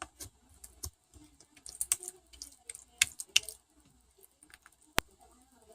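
Irregular sharp clicks and taps: a quick cluster about two seconds in, two louder ones about three seconds in, and a single crisp click about five seconds in.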